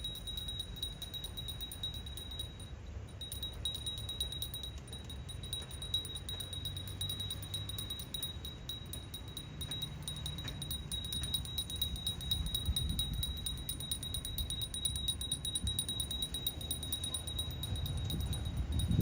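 Outdoor street ambience: a steady high-pitched tone with fast, even pulsing above it, like insects buzzing, over a low rumble that grows a little louder in the second half.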